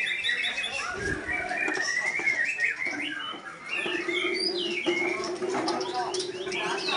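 Chorus of caged songbirds, white-rumped shamas (murai batu) among them, singing over each other in quick rising and falling whistles and chirps. A steady low hum joins about four seconds in.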